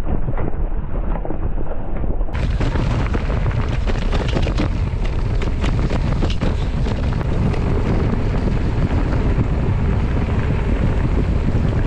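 Heavy wind buffeting on the microphone over the rattle and crunch of a mountain bike riding a rocky gravel trail, with many small knocks from stones and the bike jolting.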